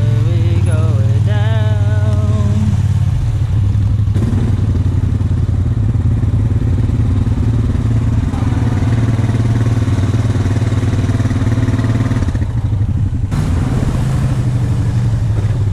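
Honda 520 ATV's single-cylinder engine running steadily as the four-wheeler rolls down a bank and wades into a creek.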